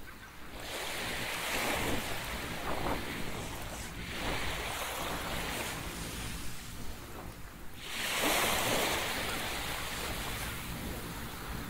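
Waves washing up on a sandy beach in three surges a few seconds apart, the loudest about eight seconds in, over a low wind rumble on the microphone.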